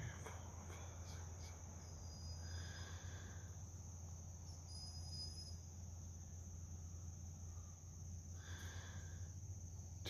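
Faint chorus of crickets, a steady high-pitched drone with a low hum beneath it.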